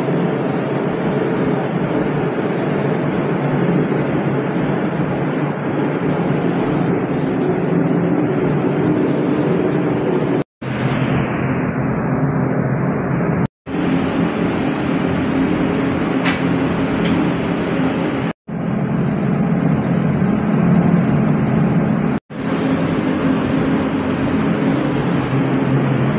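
Steady rush of air from a spray-painting setup: a paint spray gun hissing over the hum of a running motor, such as the booth fan or compressor. The sound drops out abruptly four times for an instant.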